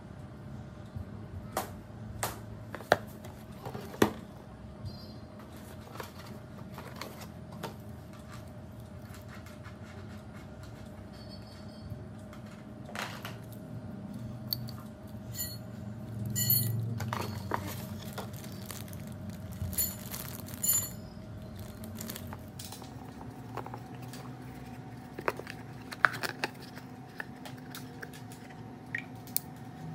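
Hands handling a cardboard product box and a braided wiring harness with plastic connectors: scattered clicks, taps and rustles, with a louder rustle about two-thirds of the way through, over a faint steady hum.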